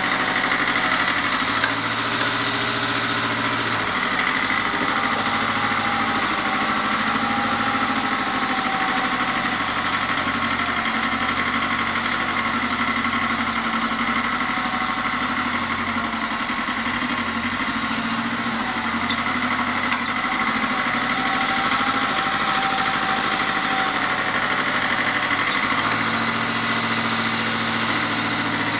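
Satoh Beaver S370 compact tractor's engine running steadily throughout, its low note swelling and easing every few seconds as the tractor moves.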